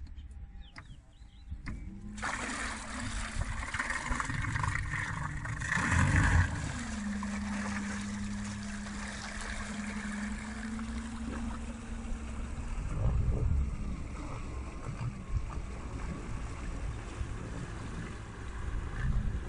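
Electric outboard motor (Golden Motor EZ-L03, 2.8 kW) starts driving the boat about two seconds in. Its propeller churns the water and the motor gives a steady low hum, with a surge around six seconds. The hum fades after about twelve seconds, leaving water wash and wind noise.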